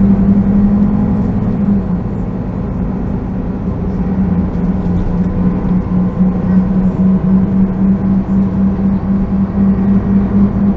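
Solaris Urbino 12 city bus heard from inside while riding: its engine and drivetrain run with a steady hum that eases slightly about two seconds in, then turns to an even pulsing drone.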